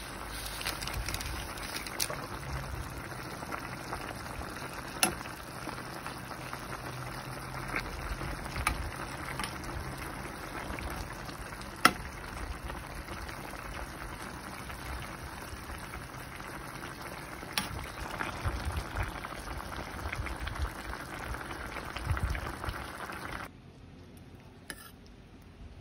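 Chicken, bamboo shoot and saluyot broth bubbling in a wok, a steady hiss, with a few sharp taps of a utensil against the pan. The sound drops away near the end.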